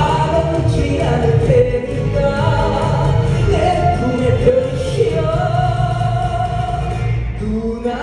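Trot song performed live: a male voice singing through a handheld microphone over amplified backing music, with long held notes in the second half.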